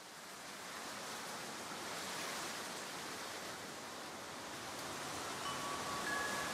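Opening of a background music track: a steady wash of noise fades in from silence, and a few held tones enter about five and a half seconds in.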